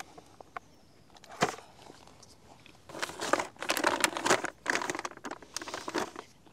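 Plastic food packaging being handled, crinkling and rustling for about three seconds from halfway in, after a single sharp click.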